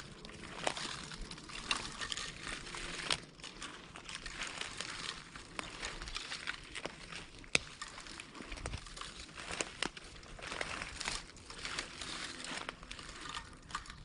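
Dry fallen leaves rustling and crunching underfoot, in uneven swells like footsteps on leaf litter, with scattered sharp snaps of small twigs.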